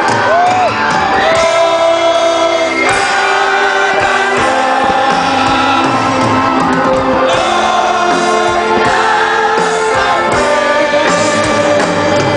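Live band music with a singer, played loud over a concert sound system.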